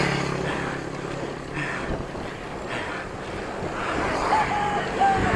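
Road traffic and wind noise heard from a moving bicycle. Three short high tones come near the end.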